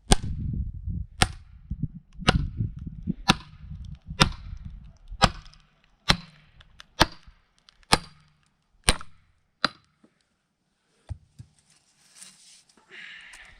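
Hand tool striking a log being split and shaped: about eleven sharp blows, roughly one a second, stopping about ten seconds in.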